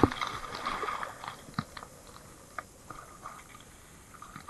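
Scattered small clicks and knocks of fishing tackle and handling in a boat while a hooked fish is reeled in, busiest in the first second.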